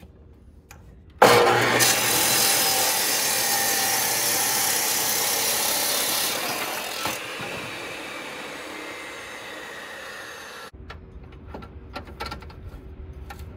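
Electric chop saw with a 14-inch diamond blade cutting through a clay brick: the saw starts suddenly about a second in and cuts loudly for about five seconds, then winds down and stops near the end, followed by light metallic clicks of the saw's vise being loosened.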